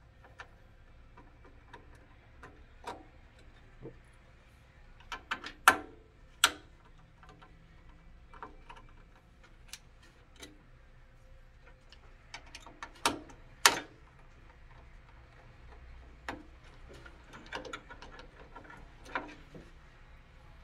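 Scattered light clicks and taps of a small hex screwdriver and screws as a circuit board is unscrewed from a 3D printer's metal chassis. The sharpest clicks come in two close pairs, about six and about thirteen seconds in.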